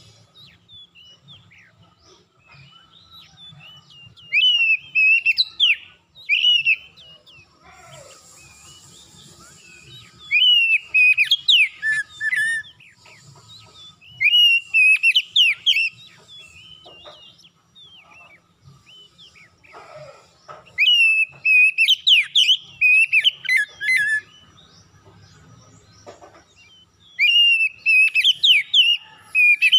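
Oriental magpie-robin singing in five loud bursts of rapid whistled phrases, with short pauses between them.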